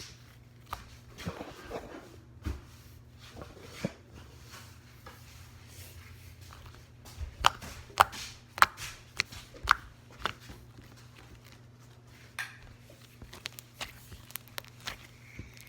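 Slime being played with by hand, with scattered sharp clicks and small pops and a quick run of louder pops about seven to ten seconds in.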